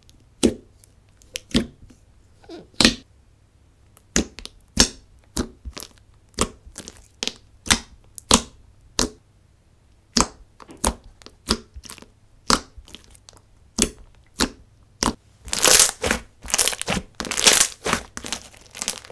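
Thick, glossy slime being poked and squished by fingers, giving a series of sharp pops and clicks about twice a second, which turn into a denser crackling squish near the end.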